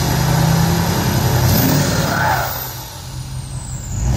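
Ford F-350's 6.7 Powerstroke V8 turbodiesel heard at the tailpipe, running and revved once about two seconds in, with a high whistle falling in pitch as the revs drop back. A second rev starts near the end.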